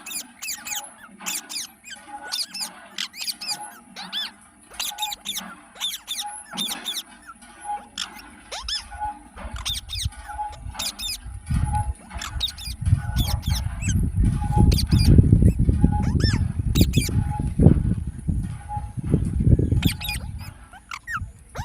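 Green parrot chirping over and over in short, sharp, high squeaks, over a steady high hiss. About ten seconds in, a loud low rumble comes in and becomes the loudest sound.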